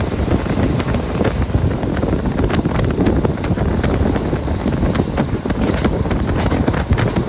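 Strong wind buffeting the microphone: a loud, steady rumble with irregular knocks and gusts.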